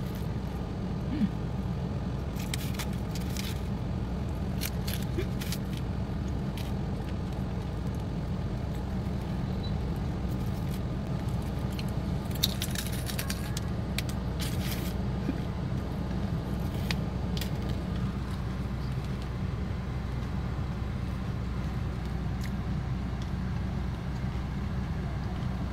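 Steady low rumble of a car, heard inside the cabin, with scattered crisp crunches and crackles as a flaky fried mathri is bitten and chewed.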